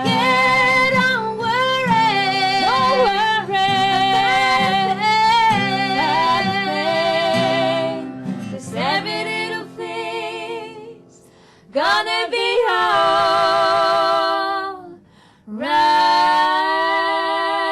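Music: two female voices singing wordless harmony over acoustic guitar, with long held notes and vibrato. The sound drops away briefly twice before a final long held chord.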